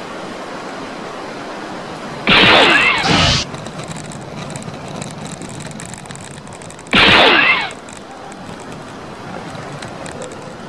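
An edited-in sound effect plays twice, each time a loud burst of about a second with a falling sweep in pitch that starts and cuts off abruptly, over a steady hiss.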